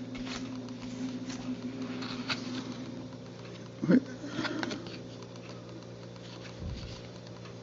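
Light scattered taps and rustles of hands handling View-Master reels and their paper booklets, over a steady low hum.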